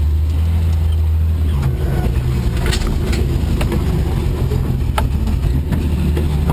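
1983 Ford Ranger's 2.8-litre V6 running steadily as the truck is driven over rough woodland ground, with a few sharp knocks and rattles from the body bouncing.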